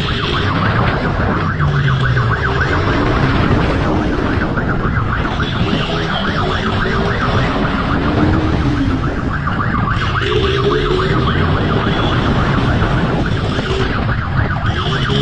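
Motorcycle riding at speed with heavy wind rush on the helmet microphone, engine running underneath, and a siren wailing up and down over it.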